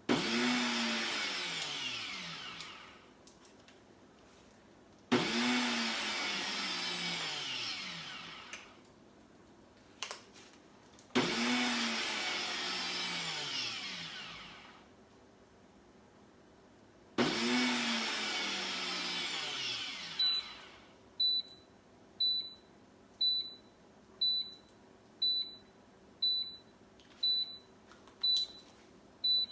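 Instant Pot Ace Nova blender crushing ice on its crushed-ice program. The motor runs in four pulses of about three seconds each, winding down after each pulse, followed by a string of about ten short high beeps, roughly one a second, as the program finishes.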